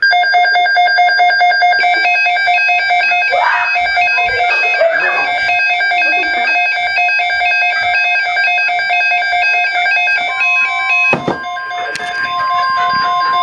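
Loud electronic alert sound of several steady tones, from a weather alert broadcast. About ten seconds in, a single steady tone comes in: the NOAA Weather Radio warning alarm tone that goes before the spoken alert. There is a sharp click shortly after the tone starts.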